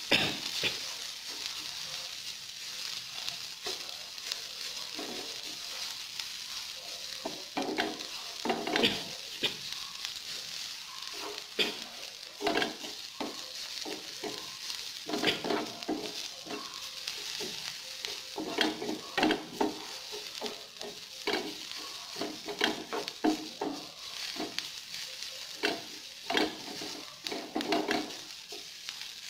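Chopped onion sizzling in oil in a nonstick frying pan while a wooden spatula stirs it, scraping and knocking against the pan in irregular strokes over a steady hiss.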